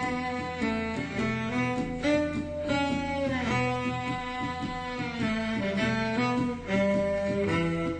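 Instrumental music: held pitched notes that change every half second or so, with a sliding drop in pitch about three and a half seconds in.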